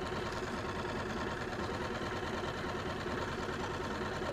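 Small 6 hp outboard motor running steadily, a fast even putter.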